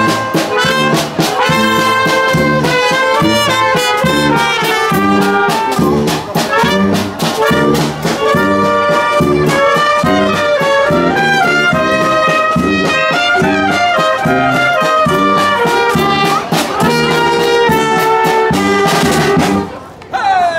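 A street brass band playing a lively tune live, with trumpets, trombones and saxophones over drums keeping a steady beat. The music breaks off about a second before the end.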